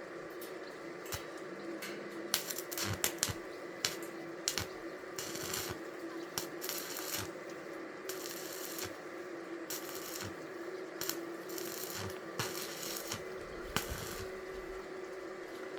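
Scattered light metallic clinks and rattles of steel shelf parts being handled, with several short hissing bursts of about a second each over a steady hum.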